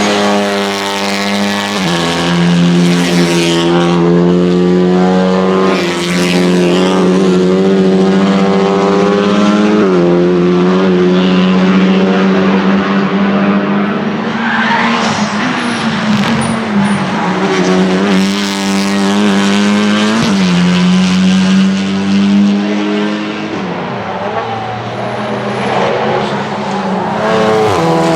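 Honda Civic Type R TCR race cars' 2-litre turbocharged four-cylinder engines running hard on track, the engine note changing abruptly every few seconds.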